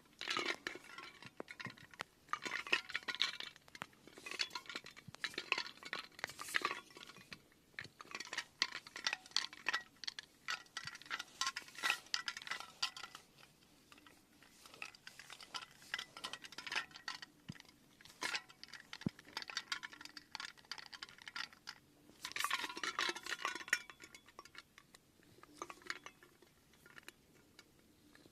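Light clinks and scrapes of small hard objects, like cutlery or glassware being handled, coming in irregular runs with short pauses.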